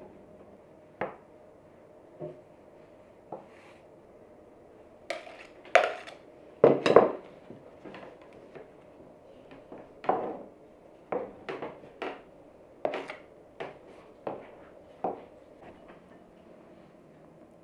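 A spatula clinking and scraping against a ceramic bowl as cream is scooped out and spread on a rolled sponge cake. The clinks come irregularly, with the loudest cluster about six to seven seconds in.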